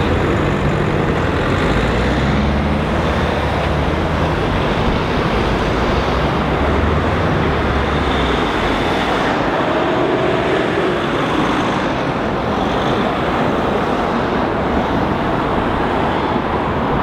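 City street traffic: cars driving past close by in a steady wash of road noise, with a low engine hum underneath that stops about halfway through.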